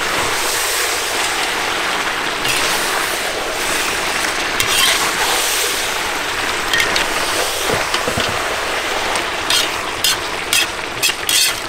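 Lamb ribs, liver and onions sizzling steadily in a hot cast-iron kazan while being stirred with a metal spatula, with a few sharp scrapes and knocks of the spatula against the pot near the end.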